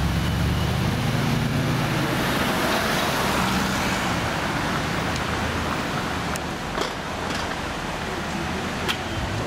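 First-generation Audi R8 engine running at low revs as the car pulls away, fading into general traffic noise after about two seconds, with a few short clicks near the end.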